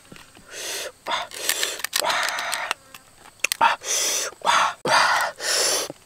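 Knife blade scraping and prying at a closed oyster's shell: a run of short, rasping scrapes with a few sharp clicks between them.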